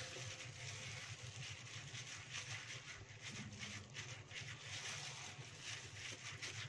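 Gloved hand mixing chicken wings in a thick wet marinade in a ceramic bowl: soft wet squishing and plastic-glove rustling, faint, over a steady low hum.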